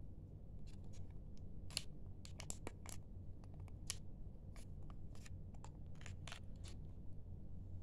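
Small clear plastic parts bag crinkling as it is handled: a string of short, irregular crackles that stop about a second before the end, over a steady low hum.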